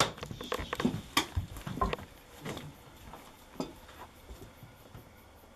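Footsteps and scuffs on a debris-strewn wooden floor: a quick run of knocks and crunches that thins out after about two seconds into a few scattered ticks.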